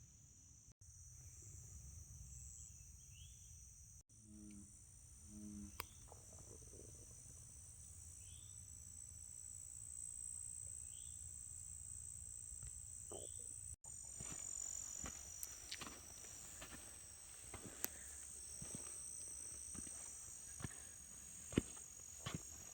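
Insects droning steadily in a high pitch, with a few short rising chirps over them. In the second half, scattered sharp clicks and ticks join in.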